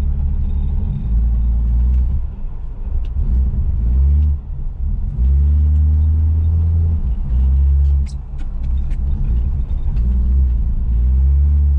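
Plymouth Duster's slant-six engine running under load, heard inside the cabin, its pitch and loudness rising and falling as the throttle is worked while driving in snow. A few light clicks come through in places.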